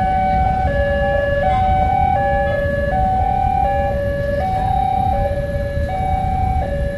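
Railway level-crossing warning alarm ringing with the barriers down. It is an electronic two-tone signal alternating between a higher and a lower note, each held a little under a second, over a steady low rumble.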